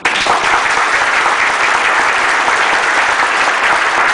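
Audience applause that breaks out all at once and holds steady.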